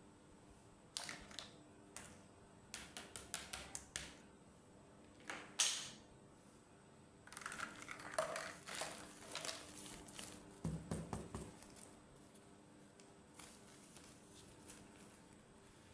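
Miniature plastic toys and their packaging being handled: sharp clicks and taps, a few seconds of rustling in the middle, then a quick run of dull knocks.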